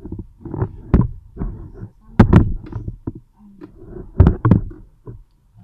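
An irregular series of sharp knocks and dull thumps, several of them loud, with short bits of voice between them.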